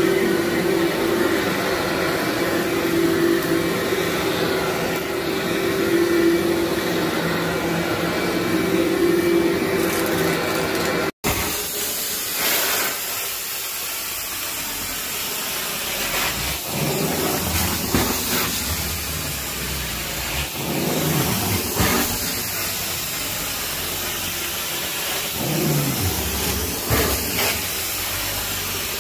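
Upright motorized-brush carpet machine running with a steady motor hum for about the first ten seconds. After a short break, a carpet extraction wand hisses and sucks in repeated surges as it is pulled in strokes across wet carpet.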